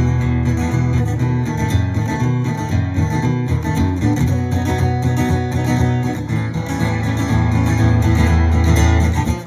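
Instrumental break of a blues song: guitar with a steady beat and a bass line, no singing.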